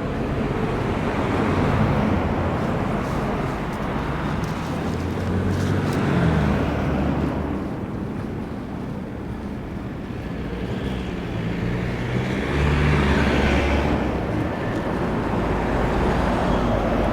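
Gusty snowstorm wind buffeting the binaural microphones, mixed with the steady noise of passing road traffic; a louder swell of traffic noise rises and fades about three quarters of the way through.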